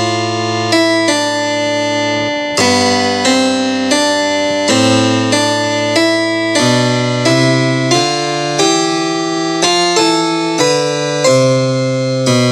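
Yamaha DGX-660 digital piano played with both hands, a steady run of chords with a new one struck about every second.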